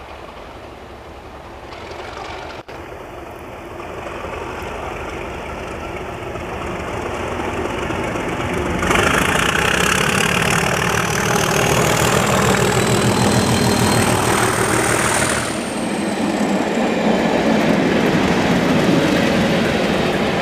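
Class 37 diesel locomotives with English Electric V12 engines approaching and passing close by, growing steadily louder. A high whistle from the turbochargers rises in pitch and then falls away as the engine passes.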